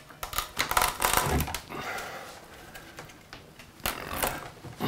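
Flat bar prying an old nailed-in wooden door header loose: an irregular run of sharp clicks and knocks from the wood and nails as it works free, busiest at the start and again near the end.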